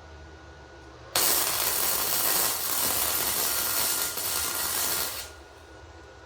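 A welding arc running in one steady burst of about four seconds, starting suddenly about a second in and cutting off just after five seconds: a weld being run on a turbo flange.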